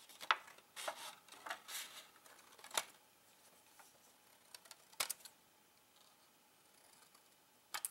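Scissors snipping through a strip of printer paper: a run of short cuts over the first three seconds, then a few sharp clicks about five seconds in and a double click near the end.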